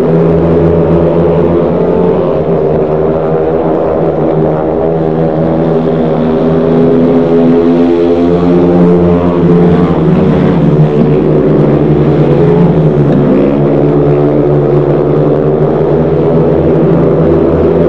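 Several speedway motorcycles with 500 cc single-cylinder engines racing on a dirt oval. Their engines run loud and continuously, the pitch wandering up and down as the riders work the throttle through the bends.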